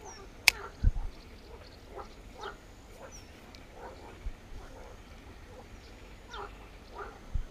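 Short animal calls repeating every half second or so, with a sharp click about half a second in and a couple of dull thumps, one near the start and one near the end.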